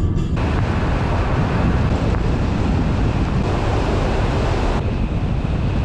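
Steady road and wind noise of a car driving at speed, made of several short clips joined together, so the noise changes abruptly a few times.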